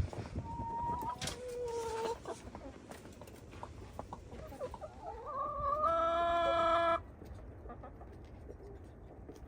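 Chickens calling, with a rooster crowing once: a long call that rises, then holds steady, and stops abruptly about seven seconds in. A shorter call comes earlier, about a second in.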